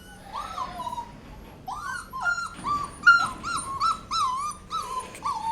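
Very young puppy whimpering and squealing in short high cries, a couple at first and then a quicker run of them from about two seconds in.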